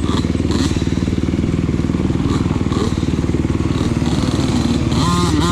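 Off-road vehicle engine running at steady speed, the pitch rising and falling as it revs near the end.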